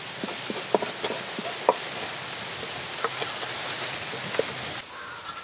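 Goatfish being scaled and cleaned by hand: quick scratchy scrapes and scattered sharp clicks over a steady hiss. The sound drops and changes abruptly near the end.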